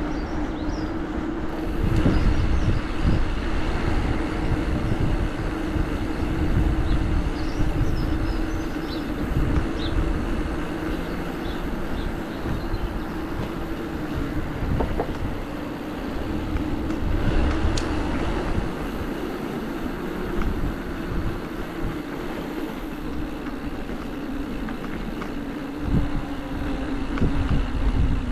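Steady drone of a vehicle's motor while riding along a road, under heavy wind rumble on the microphone; the drone drops in pitch near the end. A few faint high chirps in the first ten seconds.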